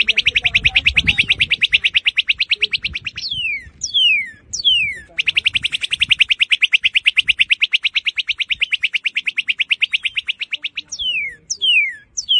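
Northern cardinal (red cardinal) singing: loud, clear whistles sliding downward, given in pairs, alternating with long, very rapid even trills, one lasting about three seconds at the start and another about five seconds from the middle, with a new trill starting near the end.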